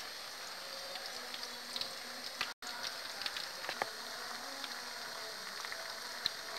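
Corn fritters deep-frying in hot oil in a wok: a steady sizzle with scattered small pops and crackles, broken by a momentary gap a little before the middle.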